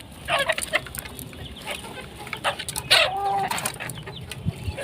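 Rooftop poultry calling: chickens clucking in short calls, with one louder, longer call about three seconds in.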